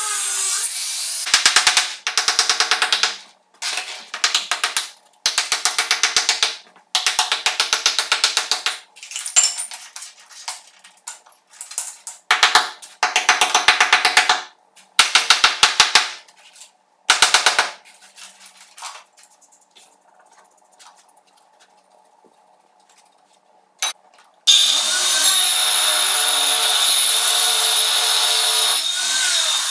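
Chipping hammer chiselling floor tiles off the screed in short bursts of rapid blows, with pauses between them. Near the end a large angle grinder starts and cuts into the screed with a steady whine that rises and falls a little in pitch.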